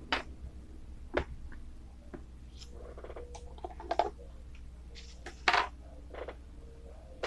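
Handling noises: a multimeter's test leads being pulled off the terminals in a plastic tub's lid, with scattered clicks and rustles of the probes and wires against the plastic, the loudest about four and five and a half seconds in. A low steady hum runs beneath.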